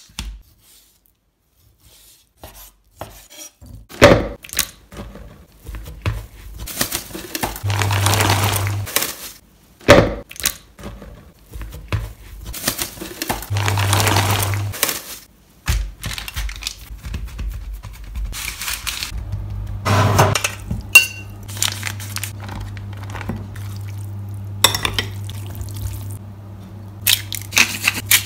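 Kitchen food-prep sounds: sharp clicks and knocks of dishes and utensils, and a hissing stretch as frozen broccoli is tipped into a pot of boiling water. A steady low hum runs through the second half.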